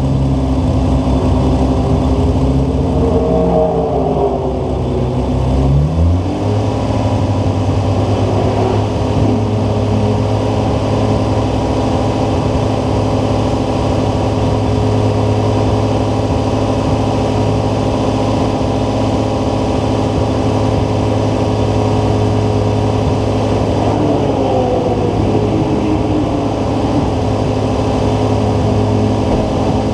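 Nissan RB26 straight-six engine with a Garrett GTX4088R turbo, running steadily at low revs. About six seconds in its pitch rises once and then holds at the new speed.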